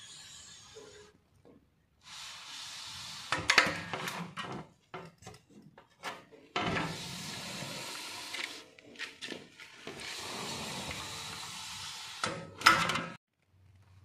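Aluminium window sections being handled and moved: three stretches of steady scraping noise, each two to three seconds long, with sharp knocks about three and a half seconds in and near the end.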